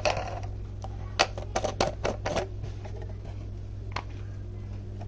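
Marbles clacking and rattling along a wooden HABA marble run: a quick cluster of sharp clicks in the middle, one more near the end, over a steady low hum.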